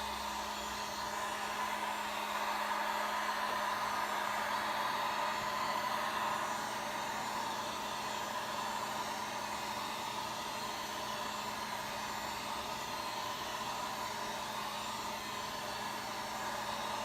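Harbor Freight heat gun running on its low setting: a steady blowing rush with a constant low motor hum, heating the glue on an RC tire rim.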